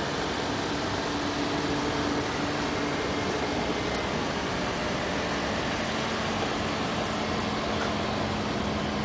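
Steady machine hum and hiss, with a faint low tone that drops slightly in pitch about six seconds in.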